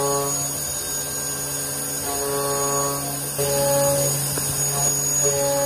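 Hurco VMX64/40T vertical machining center running: a steady low hum with whining tones that come and go every second or so, and a faint click about two thirds of the way through.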